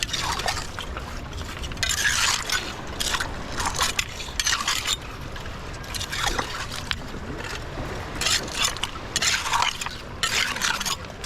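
Wet scraping and sloshing of a hand rake digging through waterlogged tidal-flat mud for Manila clams, in repeated strokes every second or two, over a steady low rumble.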